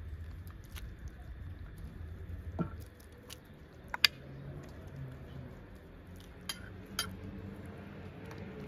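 Metal ladle clinking against the pot and a bowl as soup is ladled out: a handful of sharp clinks, the loudest about four seconds in.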